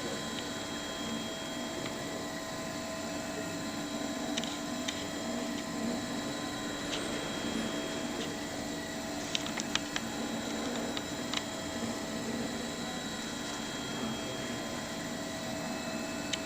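Clay 3D printer running: a steady hum of motors with several constant tones, and a few sharp clicks here and there.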